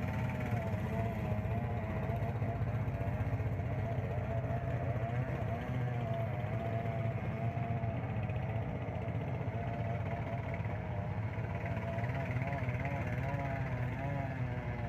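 A small engine running steadily at an even speed, its pitch wavering slightly.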